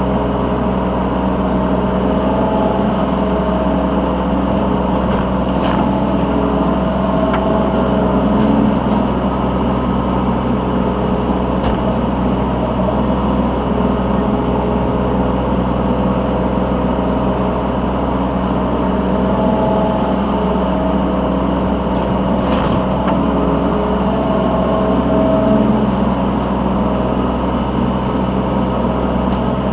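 Yanmar B3Σ 3-tonne mini excavator's diesel engine running steadily, heard from the operator's seat while digging and loading, its tone shifting now and then as the machine works, with a few faint clicks.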